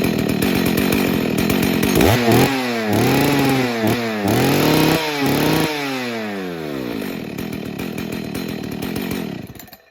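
Husqvarna 61 Rancher's two-stroke chainsaw engine idling, its idle just turned up, then blipped up and down four times from about two seconds in. It settles back to idle and is switched off, cutting out suddenly near the end.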